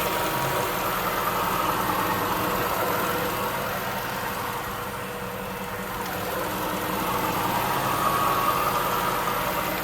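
A 2005 Jaguar S-Type R's supercharged 4.2-litre V8 idling, with a steady hiss coming from low in the intake area. The owner suspects a vacuum leak, since the engine runs lean and stumbles.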